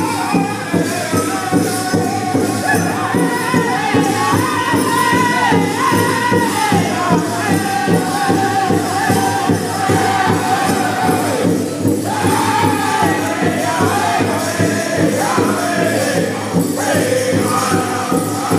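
Powwow drum group singing around a big drum: a steady, fast drumbeat under group voices in falling phrases. The singing breaks off briefly about twelve seconds in and again a few seconds later.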